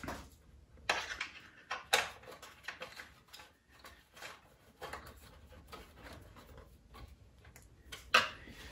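Irregular small clicks and taps of hard plastic and metal parts being handled, with hands fitting screws and a flyscreen to a motorcycle's front fairing. The sharpest clicks come about two seconds in and near the end.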